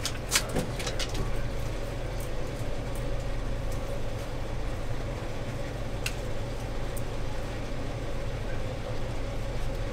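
Steady low mechanical hum with a faint steady whine above it, and a few light clicks near the start and again about six and seven seconds in.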